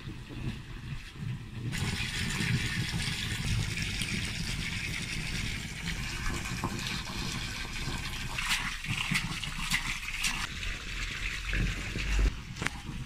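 A stream of water from a garden hose splashing steadily into the water of a half-filled above-ground pool, with a low rumble underneath.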